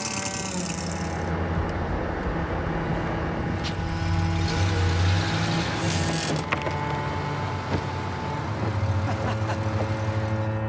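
A chainsaw cutting stops about a second in, leaving a pickup truck's engine running, rising in level around the middle and again near the end, over soft background music.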